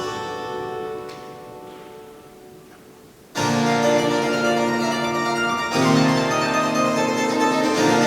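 Restored church pipe organ playing held chords: a phrase fades away in the church's reverberation, then about three and a half seconds in a loud chord enters suddenly and the music goes on, changing chord a couple of seconds later.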